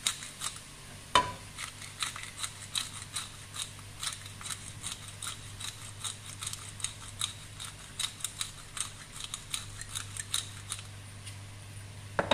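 Ground beef and onion crackling and popping as they sauté in a stainless steel pot, with a wooden spoon stirring and scraping through them and one sharper knock against the pot about a second in. A steady low hum runs underneath.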